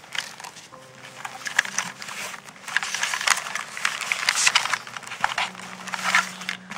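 Hand rummaging through a zippered canvas bag full of extension cords: fabric rustling and cables shifting, with irregular small clicks and scrapes, busier from about three seconds in.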